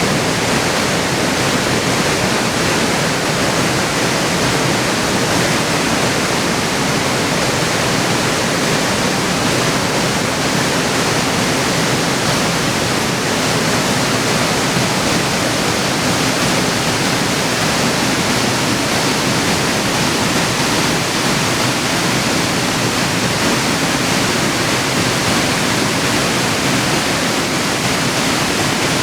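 Waterfall, a loud steady rush of falling water.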